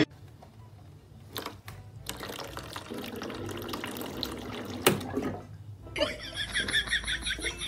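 Water running from a water dispenser's push tap as a cat paws the lever, with a few sharp clicks. A different, rapidly pulsing sound comes in near the end.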